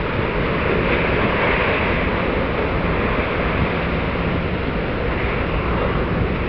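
Steady wind noise on the microphone mixed with water wash, over a low steady drone from a passing container ship.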